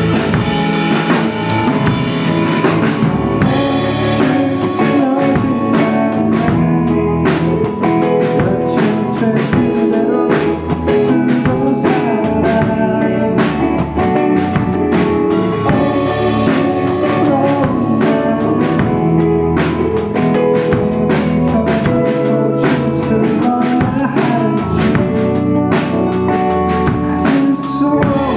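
Live band playing a steady groove: electric guitars over a drum kit keeping a regular beat.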